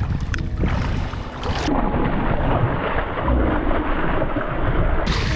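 Striped bass thrashing and splashing in shallow water at the end of the line as it is landed, with wind rumbling on the microphone.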